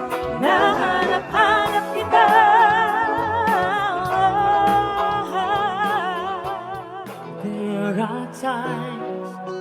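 A band playing with a singer holding long, wavering notes with wide vibrato from about half a second in. After about five seconds the voice drops to shorter, quieter phrases over the accompaniment.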